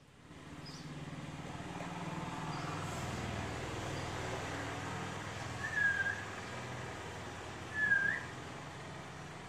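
Two short whistled notes about two seconds apart, the second rising at its end, over a steady low rumble.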